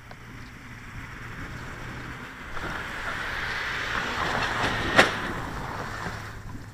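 Outdoor noise: a hiss that swells for a few seconds and then fades, with one sharp click about five seconds in and a faint steady low hum underneath.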